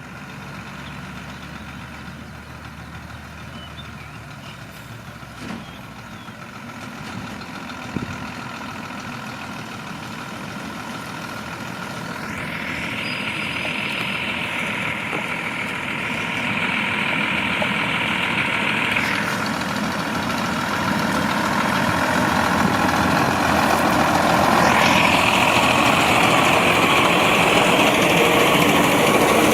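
Heavy diesel engine of earthmoving machinery running, growing steadily louder as the machine comes closer. A high whine joins it about halfway through and again near the end.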